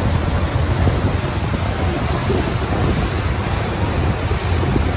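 Steady low rumble under an even wash of wind and water noise, with no single event standing out.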